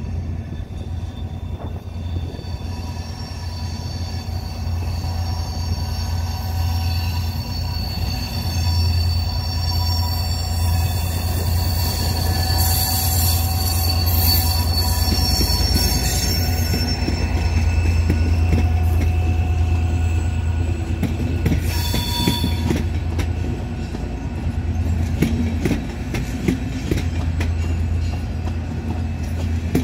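HŽ class 2044 diesel-electric locomotive hauling a passenger train, its diesel engine running with a steady low drone that grows loudest around the middle. High-pitched wheel squeal comes in through the middle stretch and once more briefly later, and rapid clicking of wheels over the rails builds near the end.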